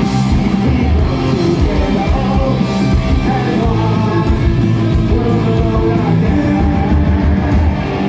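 Punk rock band playing live: electric guitars, bass guitar and drums, with a singer shouting into a microphone.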